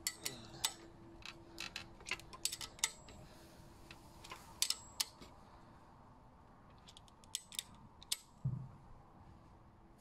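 Sharp, irregular metal clicks and taps from a crank-bolt wrench turning the fixing bolt of a Campagnolo Super Record crankset, with the crank arm held in place, and one dull thump near the end.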